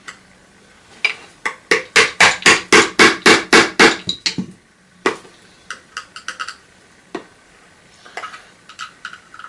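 A fast run of loud, sharp knocks, about five a second for three seconds, as the casing of an old Hoover vacuum cleaner is struck and worked loose during dismantling. A few scattered single knocks and clicks follow.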